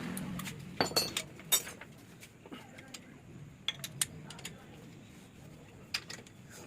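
Metal hand tools and engine parts clinking against each other during two-stroke engine assembly: a cluster of sharp clinks about a second in, a few more around four seconds, and one near six.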